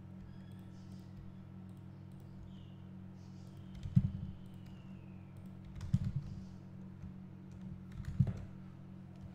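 Computer keyboard and mouse clicks, with three louder clusters of key presses and thumps about four, six and eight seconds in, over a steady low hum.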